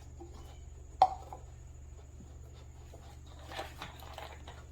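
Small measuring spoon stirring baking soda and red food colouring inside a toy volcano: faint scraping and ticking, with one sharp tap of the spoon about a second in.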